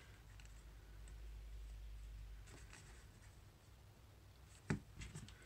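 Faint handling noise: hands shifting the spot welder's board and cables on cardboard, with a sharp click near the end.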